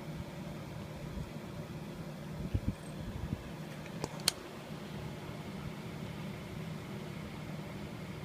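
A small machine running with a steady low hum, with a few soft thumps and a sharp click about four seconds in.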